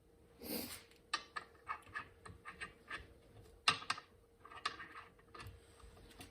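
Light, irregular metal clicks and taps, about three a second with one louder click midway, as footpeg spindles and tools are handled while the spindles are installed.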